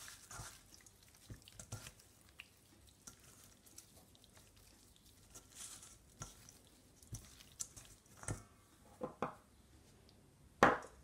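Hands rubbing seasoning into raw gray snapper pieces in a stainless steel bowl: faint, soft wet squishing with scattered light taps. A single sharp knock about ten and a half seconds in is the loudest sound.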